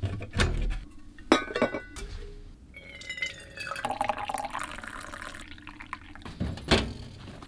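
Several knocks and ringing metal clinks, then coffee pouring into a stainless steel tumbler for about two seconds, with one more knock near the end.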